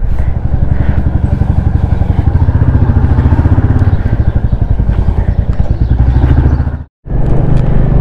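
Motorcycle engine running steadily while riding, heard from the handlebar, with a fast even pulse from its firing. The sound cuts out for a moment about seven seconds in, then carries on.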